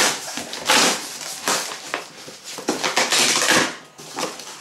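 Cardboard being ripped by hand as a shipping box's lid and the corrugated packing inside are torn open: a series of tearing bursts.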